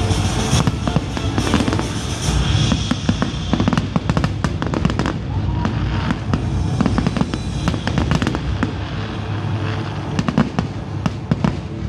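Aerial firework shells bursting in a fast, dense run of bangs and crackles.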